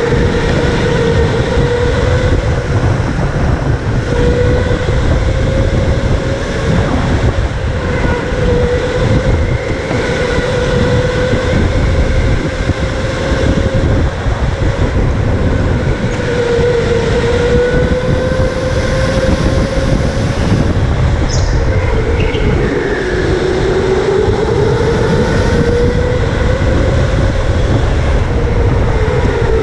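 Electric go-kart motor whining as the kart is driven hard, heard from the driver's helmet over a heavy low rumble. The whine holds fairly steady, dips in pitch about halfway through and again near the three-quarter mark as the kart slows, then climbs again as it speeds up.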